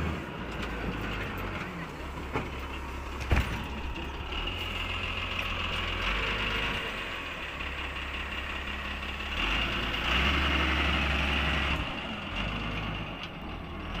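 Heavy diesel machinery running, a log truck or log loader, with a steady low rumble that shifts in level a few times and one sharp knock about three seconds in.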